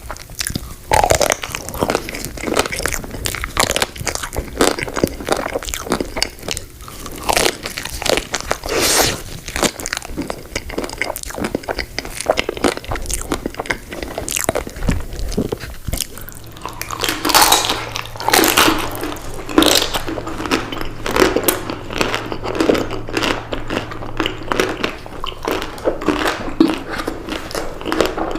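A person biting into and chewing chocolate-coated ice cream bars: repeated crisp crunches of the chocolate shell with wet chewing between them, and a few louder bites past the middle.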